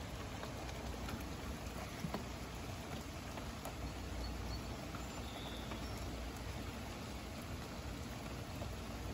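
Rain falling steadily in a thunderstorm, with a few scattered sharp drips.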